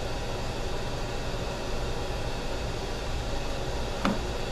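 Steady, even fan-like hiss of room machinery, with one short click about four seconds in.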